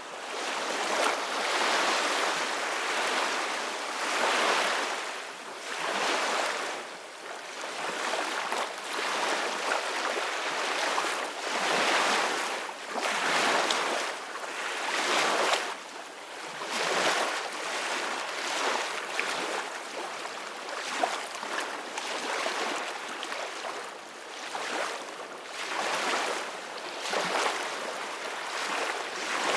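Ocean waves breaking and washing on a shore, a continuous hiss of surf that swells and falls every two to three seconds.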